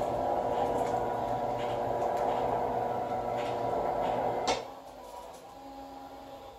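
Tubular motors of motorized RollerTrol blackout blinds and a roll-down projection screen running with a steady hum, stopping with a click about four and a half seconds in. A fainter steady hum continues after they stop.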